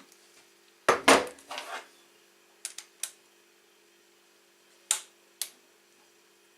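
Metal parts and tools knocking and clinking as the handle arms are fitted to a brush cutter: a loud clatter about a second in, then two pairs of short sharp clicks.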